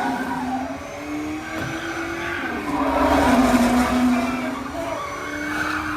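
Car engines revving and running, their pitch gliding up and down, from a film soundtrack played through a home-cinema speaker system.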